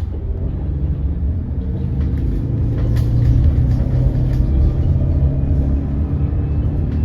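Hydrogen fuel-cell bus driving, heard from inside the cabin: a steady low rumble with a faint motor tone above it.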